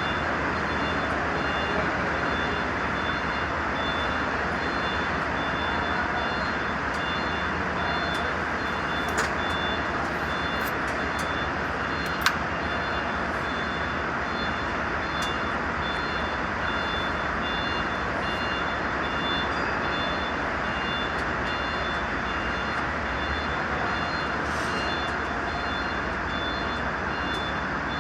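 Mercedes-Benz truck diesel engine running steadily, with a faint high beeping repeating over it and a single sharp click about twelve seconds in.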